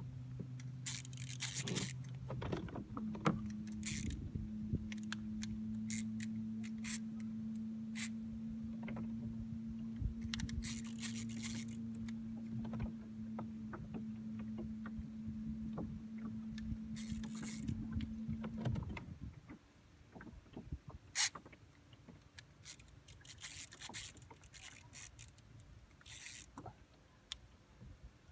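Antique Cycloid Micromatic casting reel being cranked against a hooked crevalle jack, giving scattered scraping and clicking sounds. A steady low hum runs underneath and stops about two-thirds of the way through.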